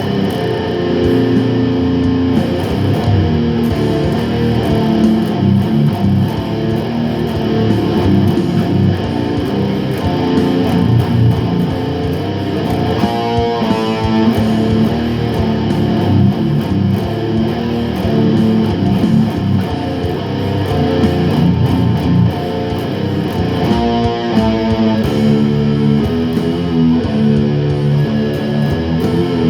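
Instrumental guitar jam: electric guitar with bass playing continuously, with a busier, higher guitar passage twice along the way.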